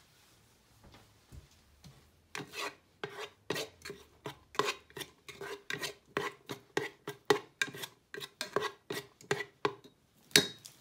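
White plastic rice paddle scraping and stirring chopped garlic around the bottom of a rice cooker's metal inner pot, in quick repeated strokes of about three a second, with the pot ringing faintly under each stroke. One sharper knock comes near the end.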